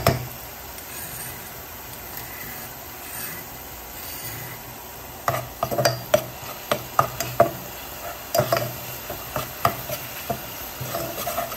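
Ground spice paste sizzling in hot oil in a saucepan while a metal spoon stirs and scrapes it. Sharp scrapes and knocks of the spoon against the pan come in clusters at the start, about five seconds in, and again after eight seconds, over a steady sizzle.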